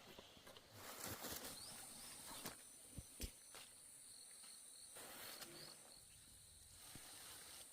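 Faint outdoor ambience of insects trilling at a steady high pitch, with a few soft knocks.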